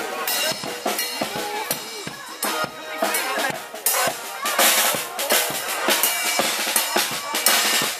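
Street brass band playing a steady drum beat, with bass drum and snare drum hits loudest and brass tones under them.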